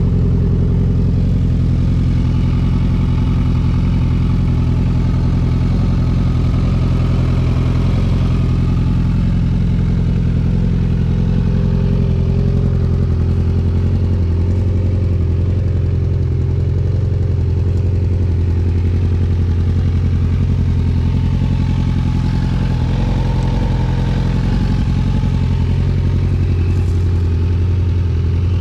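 Kawasaki Z1000 inline-four engine, swapped into a Yamaha Raptor 700 quad, idling steadily through its aftermarket silencer.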